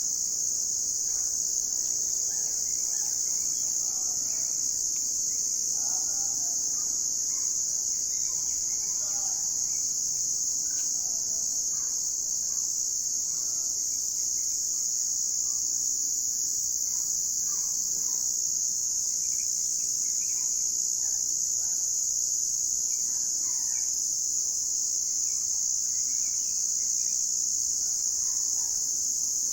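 Crickets chirping in a steady, unbroken high-pitched chorus, with scattered faint bird calls over it.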